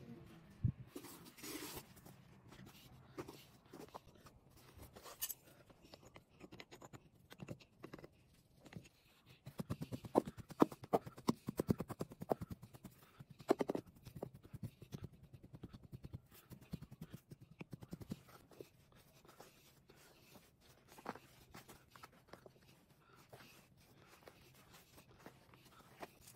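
Molding sand being packed into a wooden casting flask: hands crumbling and pressing the sand and a metal hand rammer tamping it down. Short sharp knocks and scrapes throughout, coming thick and loudest around the middle.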